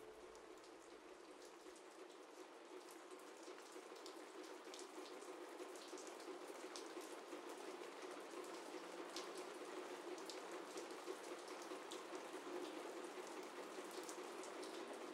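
Steady, quiet rain, a soft hiss dotted with many small drop ticks.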